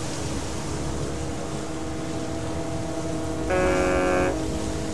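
A ship's horn sounds one short blast, under a second long, about three and a half seconds in, over a steady background.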